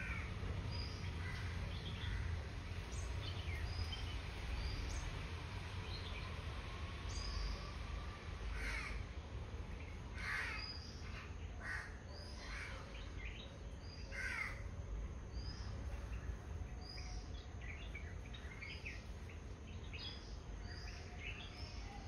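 Garden birds calling, bulbuls among them: short chirps and whistles repeat throughout, with a run of louder, harsher calls between about 9 and 15 seconds in, over a low steady rumble.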